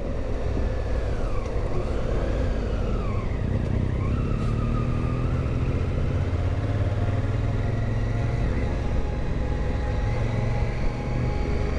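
Adventure motorcycle running at road speed, with a steady low engine rumble and road noise. A thin whine over it dips and rises in pitch a few times in the first four seconds, then holds steady.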